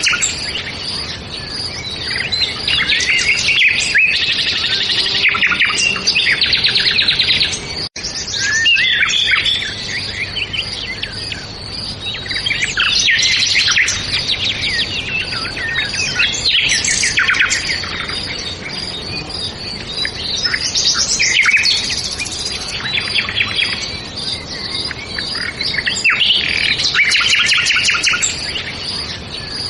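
Many songbirds singing at once: a dense, overlapping chorus of rapid chirps and trills. It cuts out for an instant about eight seconds in.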